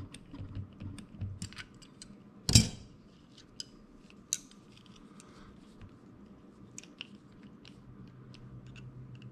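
Small metal clicks and taps of pliers and a roll pin on a Penn 430ss spinning reel's bail assembly as the pin is worked loose, with one much louder knock about two and a half seconds in and a sharp click near four seconds in.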